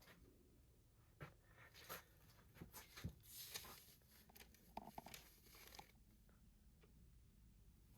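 Faint rustling and crinkling of packaging being handled, with scattered small clicks and taps, mostly between one and six seconds in.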